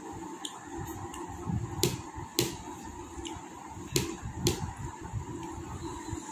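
Person eating, chewing, with four sharp clicks in two pairs about half a second apart.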